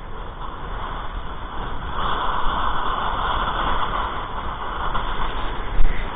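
Wind buffeting the microphone over the rushing hiss of a kiteboard planing across choppy water, the hiss growing louder about two seconds in. A single sharp knock near the end.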